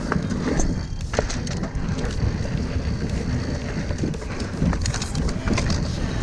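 Mountain bike riding down a rough dirt trail: the tyres rumble over the ground, with frequent sharp knocks and rattles from the bike over rocks and roots. A steady low rumble of wind on the microphone runs underneath.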